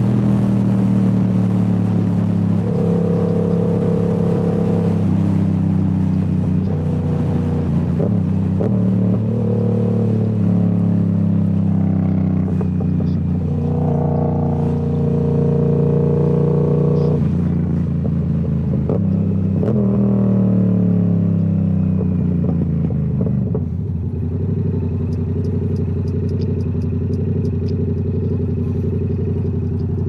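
Yamaha R7's parallel-twin engine through a Toce full-system exhaust, heard on the move. It holds steady engine speeds, with several falling glides as the revs drop off. Near the end it settles to a steady, lower note.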